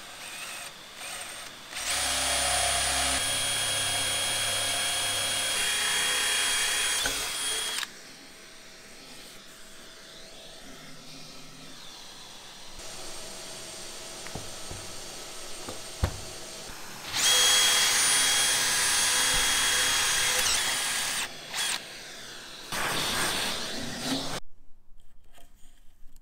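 Cordless drill boring a hole through a fiberglass-laminated bowsprit. It runs with a steady whine in two long runs of several seconds each, with a short burst near the end.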